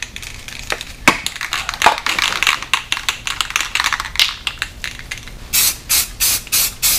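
A few scattered knocks, then from about five and a half seconds in an aerosol spray-paint can sprays in short, quick hissing bursts, about three a second, misting on a light coat.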